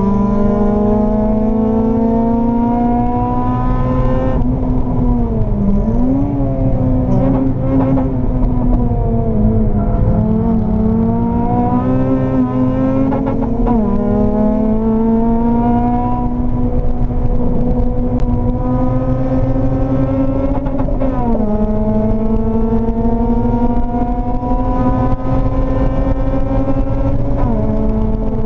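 Honda Civic Type R EP3's 2.0-litre K20 four-cylinder engine at hard throttle, heard from inside the cabin: the pitch climbs steadily through the revs and drops suddenly at each of several upshifts, with a slower fall and climb back in the middle as it brakes and pulls out of a corner.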